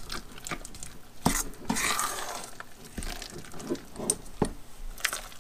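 A spoon stirring a thick cream cheese mixture in a stainless steel bowl, with irregular scrapes and clicks against the metal.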